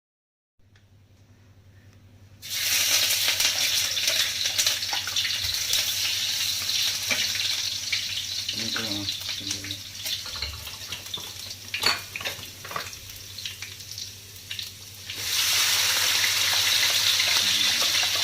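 Food sizzling in hot oil in a pan. The sizzle starts suddenly about two seconds in, eases off partway through with a few clinks, and flares up again near the end.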